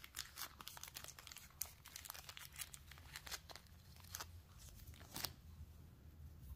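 Faint, scattered crackles of 7/32-inch copper foil tape being handled and its paper backing peeled as the tape is started on the edge of a glass piece. The crackles thin out near the end.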